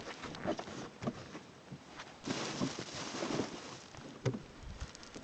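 Handling noises as a snowmobile seat is fitted: a few scattered knocks and clicks, with a rustling scrape lasting about a second and a half in the middle.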